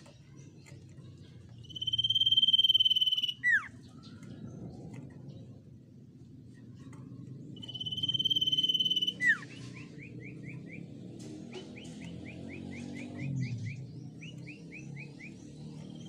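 Common iora singing: two long steady whistles, each about a second and a half and ending in a quick falling note. The second is followed by runs of short, rapid, downward-sliding notes, about four or five a second.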